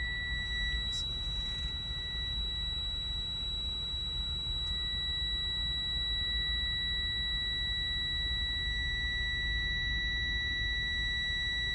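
A continuous, steady, high-pitched electronic buzzer tone, unbroken and unchanging, over a steady low rumble.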